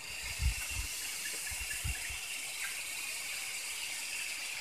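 Steady high-pitched hiss of forest outdoor ambience by still water, with a couple of soft low thumps in the first two seconds.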